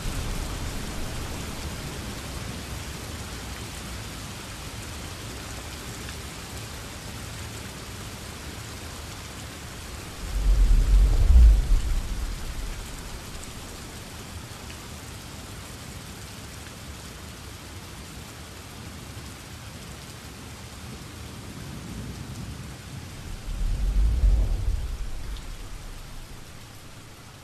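Steady rain with two low rolls of thunder, one about ten seconds in and another near the end, each swelling and dying away.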